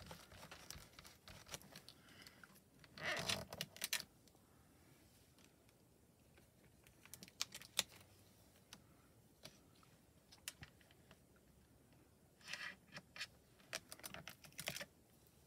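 Quiet handling sounds of rubber-stamping: a cloth rubbed over a clear stamp, a short rubbing burst about three seconds in, then scattered light clicks and a cluster of rustles and taps near the end as paper and stamps are handled on the stamping platform.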